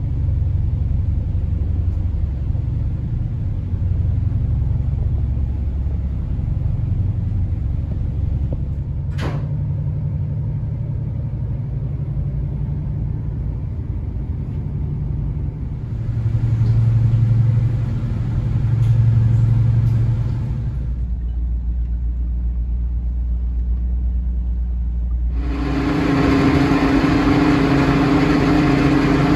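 A boat's diesel engines give a low, steady rumble, heard from on board. The sound changes abruptly a few times, with a sharp click about nine seconds in. Near the end it grows louder, with a steady hum and a hiss over it.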